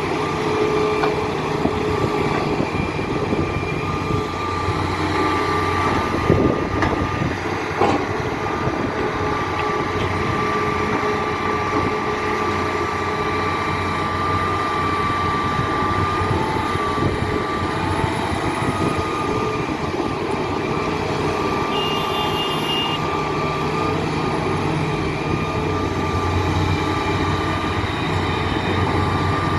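Hitachi Zaxis 350 hydraulic excavator working: its diesel engine runs steadily under a high, steady whine, with a couple of short knocks about six to eight seconds in.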